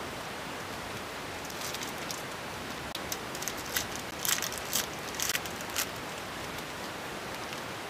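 Baseball trading cards being handled and flipped through: a run of short rustles and slides from about two to six seconds in, over a steady hiss.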